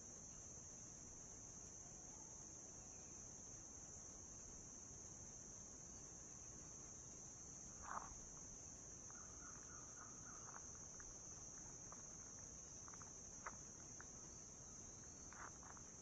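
Faint, steady high-pitched chirring of crickets, with a few faint ticks and a short soft sound about eight seconds in.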